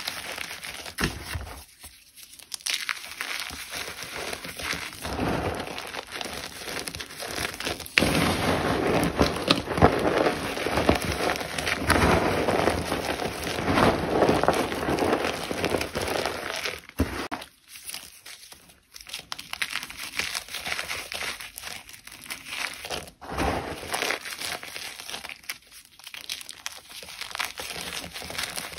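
Crisp crunching and crackling of a brittle material being crushed close to the microphone, in a dense run of crackles. It pauses briefly about two seconds in and again around eighteen seconds, and is loudest from about eight seconds in.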